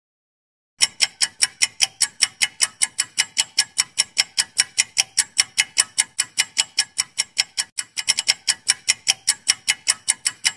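Clock-ticking sound effect of a quiz countdown timer: fast, even ticks, about four a second. It starts about a second in and cuts off suddenly at the end.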